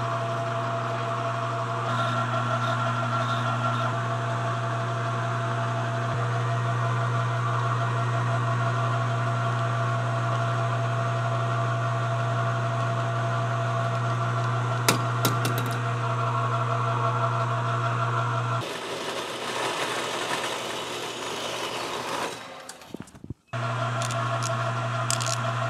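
Electric motor of a workshop machine tool running with a steady hum while small metal parts are machined, with a few light clicks about 15 seconds in. Near the end the hum gives way for a few seconds to a hissier, rougher noise, then returns.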